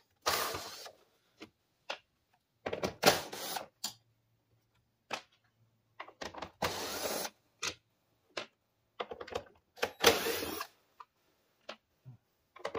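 A cordless drill with a quarter-inch nut driver running in four short bursts, each under a second, backing screws out of a plastic cover, with small clicks between runs.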